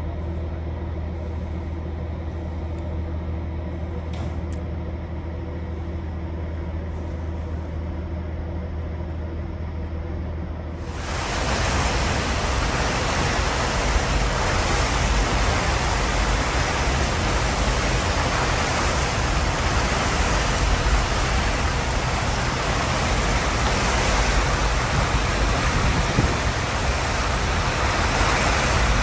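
A steady low machinery hum from the lake freighter for about the first ten seconds, then an abrupt switch to a louder, even rushing of churning water in the ship's propeller wake.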